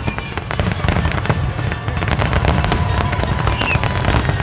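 Fireworks going off in a continuous barrage: many rapid crackling pops over a steady low rumble of booms.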